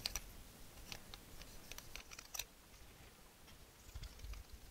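Faint scratching and scattered small ticks of a cotton bud being rubbed between the plastic piano-key buttons of an Atari XC12 cassette deck to clean off dirt.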